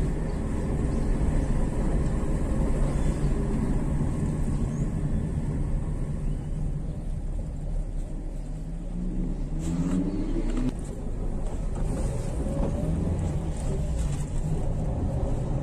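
Engine and road noise heard from inside the cab of a moving truck, a steady low hum. About eight and a half seconds in, the engine note rises for a couple of seconds as it accelerates, with a couple of short clicks around ten seconds in.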